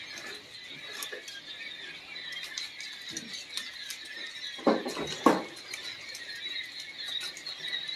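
A crowd of young poultry chicks peeping constantly in plastic crates, a dense high-pitched chatter of many small calls. Two sharp knocks come just past halfway through, a little over half a second apart, and are the loudest sounds.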